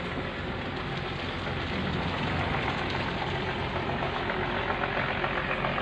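Steady low mechanical hum, like an engine idling, under a constant hiss.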